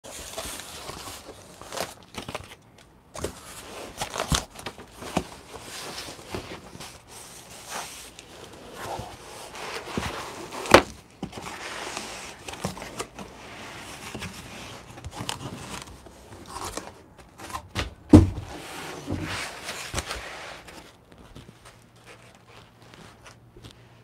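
Cardboard shipping box being opened by hand and pulled off its foam packing: flaps and tape rustling, cardboard scraping, with scattered knocks. The loudest are a sharp knock about 11 seconds in and a heavy thump about 18 seconds in; it goes quiet after about 21 seconds.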